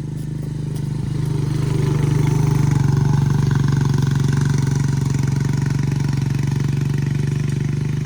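A small engine running steadily with a low, even pulsing hum. It grows louder over the first couple of seconds, then holds.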